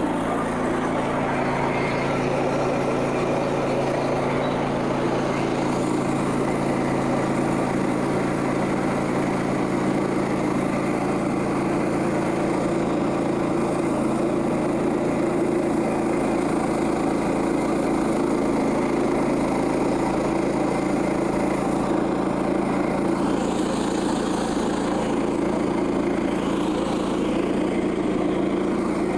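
Frontier OS27 band sawmill's small gasoline engine running steadily at speed, driving the band blade, with an even hum.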